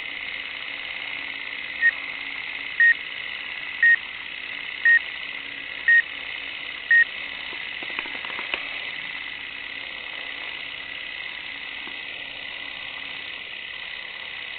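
Six short, high beeps, evenly one second apart, over a steady hiss and faint low hum from an old film soundtrack; a few faint clicks follow a little after the beeps stop.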